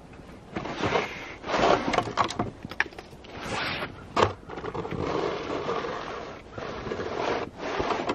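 A roof rake's blade scraping and dragging heavy wet snow and ice off a roof edge, in several rough swishing pulls as the snow slides and falls, with a few sharp knocks among them.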